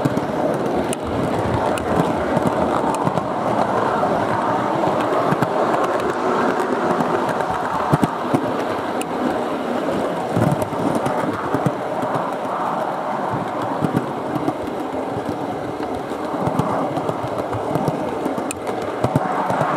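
O gauge Heljan Class 37 model diesel locomotive running along garden railway track: a steady rolling rumble of wheels and motor, with irregular sharp clicks from the wheels on the rails.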